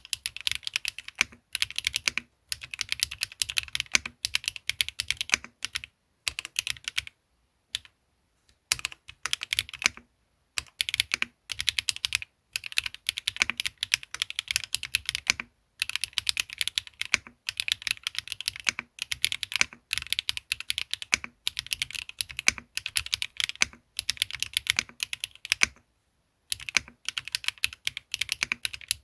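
Typing on a KBD8X MKIII gasket-mount custom mechanical keyboard with Swagkey x HMX Garnet switches, an aluminum plate, Aifei ABS keycaps and no foam inside. Fast runs of keystrokes are broken by brief pauses of about half a second to a second.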